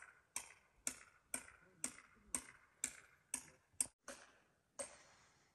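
Footsteps crunching in snow at a walking pace, about two steps a second, stopping near the end.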